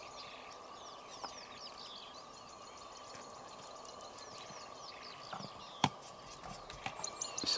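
Small birds chirping and twittering in many short calls over a steady faint high whine, with a few sharp cracks, the loudest about six seconds in, as a spotted hyena gnaws an elephant bone.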